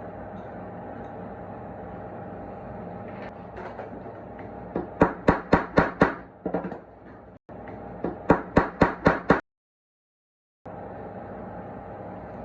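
Two quick runs of small hammer taps, five or six strikes each at about five a second, over a steady background hum. The sound drops to dead silence for about a second near the end.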